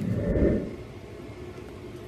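A short, low, muffled squish in the first half second or so, most likely slime being pressed or squeezed by hand, over a steady low hum.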